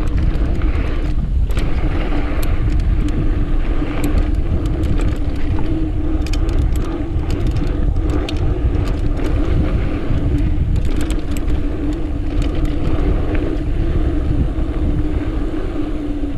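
Mountain bike rolling fast down a dirt jump line: wind buffeting the microphone and tyres rumbling over the dirt, with a steady buzz from the coasting rear hub and scattered rattles and clicks from the bike.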